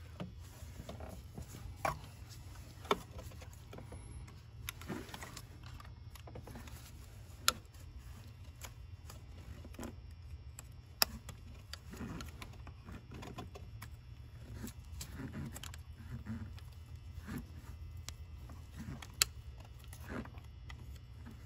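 Scattered sharp clicks and light rattling as a metal pick and the plastic PCV line connector are worked by hand to press and release the line's internal locking tabs, over a steady low hum.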